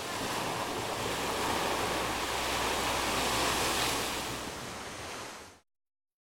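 Small waves breaking and washing up a sandy beach, a steady rush of surf that swells a little in the middle. It cuts off abruptly about five and a half seconds in.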